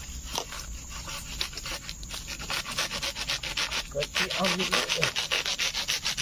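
A small hand saw sawing through the base of a betung bamboo shoot in quick, even back-and-forth strokes, growing louder about halfway through as the blade bites deeper.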